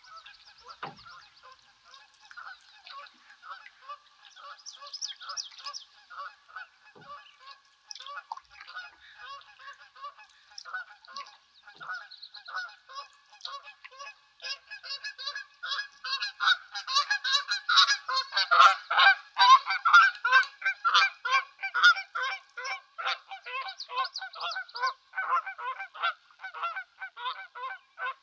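A flock of geese honking, many calls overlapping in a continuous chorus that grows louder about halfway through and is loudest a few seconds later.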